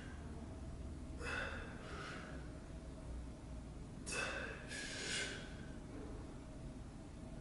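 A man breathing hard through seated dumbbell shoulder presses: two pairs of sharp, noisy breaths, one about a second in and one about four seconds in, timed with the presses.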